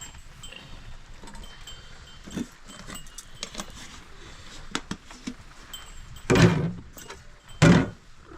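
An animal calls twice, loudly, near the end, over faint scattered clicking and rustling.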